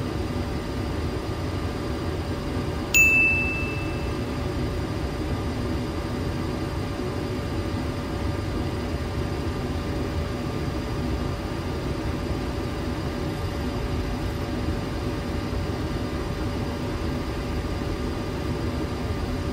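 Steady flight-deck noise of a Boeing 737-800 in flight: airflow rush with a low hum. About three seconds in, a single high chime sounds once and fades within a second.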